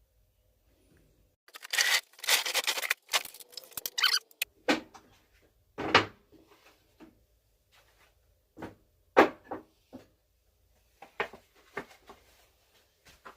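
Irregular knocks and clatter of cut wooden pieces being handled and set down on a workbench, starting about a second and a half in, with short quiet gaps.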